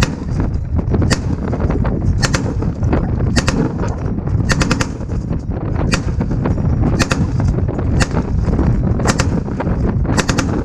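Belt-fed 7.62 mm M240 machine gun firing short bursts of a few rounds each, roughly one burst a second, over a steady low rumble.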